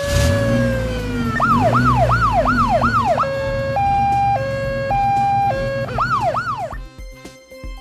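SWAT van siren cycling through its patterns: a long falling tone, then a fast rising-and-falling wail of about two sweeps a second, then a two-note high-low alternation, then the wail again. An engine rumble runs under it, and the siren stops about seven seconds in.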